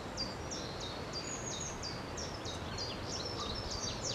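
Small songbirds chirping in woodland: a steady run of short, high notes, many of them falling in pitch, over a faint background hiss.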